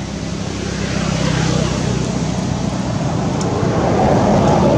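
A motor vehicle engine running steadily and passing close by, growing louder to a peak near the end, then beginning to fade.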